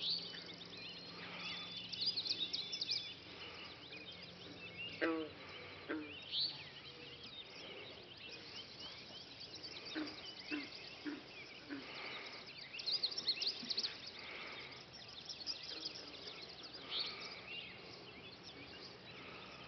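Birds chirping and trilling, with many short calls scattered throughout. Around five to seven seconds in come a few lower calls that fall in pitch.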